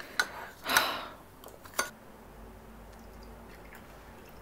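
Chopsticks clicking against a bowl: a sharp click just after the start and another a little over a second and a half later, with a short, louder rush of noise just under a second in.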